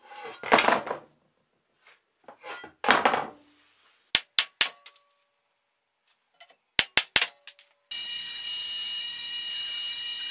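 Metal clattering twice, then sharp ringing hammer strikes on metal in two quick groups of about four each. Near the end a small belt grinder starts and runs steadily with a high whine and hiss.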